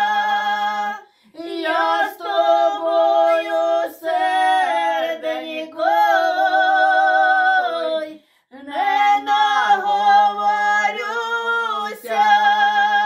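Two women singing a Ukrainian folk song a cappella in two voices, with long drawn-out notes that glide between pitches. There are short breath pauses about one second and about eight seconds in.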